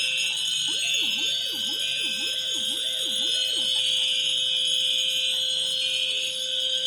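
Several fire alarm horns and sirens sounding together: a steady high tone with a pulsing pattern and slow rising sweeps over it. For a few seconds near the start, a lower siren tone wails up and down about twice a second.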